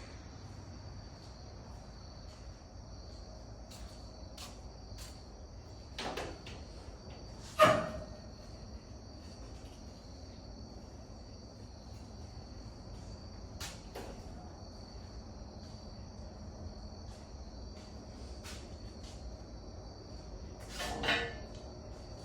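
Insects chirring steadily at a high pitch, with a few scattered knocks and clanks, the loudest about eight seconds in.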